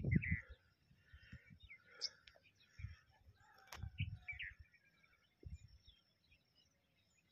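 Birds calling in scattered short chirps and whistled notes in open country, with a few brief low rumbles on the microphone, the loudest right at the start.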